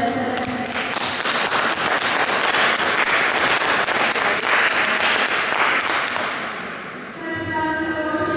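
Audience applauding: the clapping swells within the first second, holds, and dies away about six to seven seconds in.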